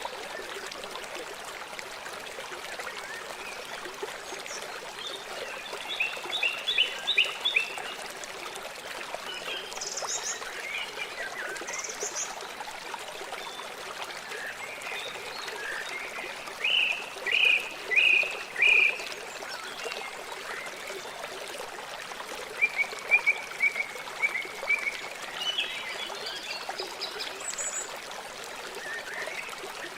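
River water flowing steadily with a constant rushing hiss. Over it, three times, comes a run of four or five short high chirping calls from a small animal, and a few scattered single high notes.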